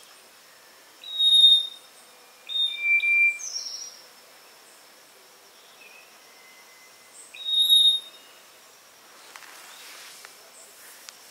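A bird calling with clear, level whistled notes: one about a second in, a pair of notes a couple of seconds later, and another near the eight-second mark.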